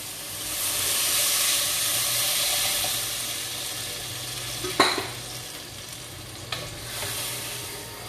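Tempe and vegetables frying and being stirred in a hot pan: a steady sizzle that swells about half a second in and eases off, with a sharp clink of the utensil against the pan about five seconds in and a lighter one later.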